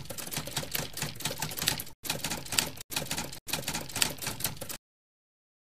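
Typewriter keys clacking in a fast, uneven run, broken by a few brief pauses and stopping about five seconds in.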